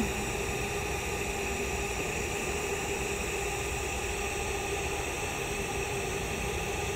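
TIG welding arc at about 105 amps: a steady hiss with a faint constant hum.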